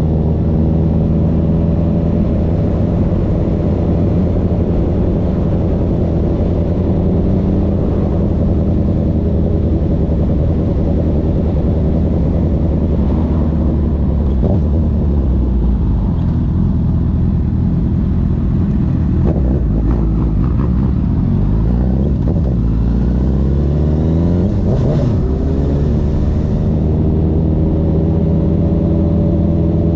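Honda CB1000R's inline-four engine through a CS Racing full exhaust system, running under way at a steady pitch. Around the middle the engine note falls and rises several times as the revs change, then it settles back to a steady pitch near the end.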